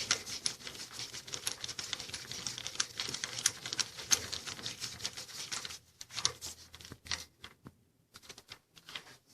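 Rapid, irregular light clicking and crinkling from hands working small metal parts and tools, for about six seconds, then a few scattered clicks.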